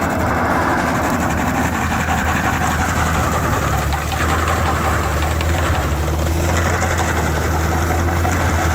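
A heavy engine running steadily with a low, even hum and a rushing mechanical noise over it.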